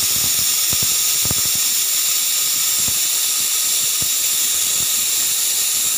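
Prestige pressure cooker whistling: steam jets loudly from the weight valve in a steady shrill hiss, with faint irregular knocks underneath. The cooker has come up to pressure.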